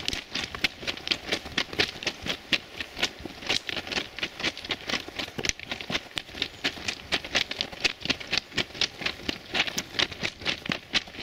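Footsteps crunching on railway track ballast at a brisk walk, a quick, even train of gravel crunches about four to five a second.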